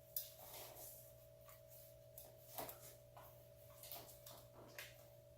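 Faint, scattered light clicks and rustles of small parts being handled, over a steady thin electrical hum.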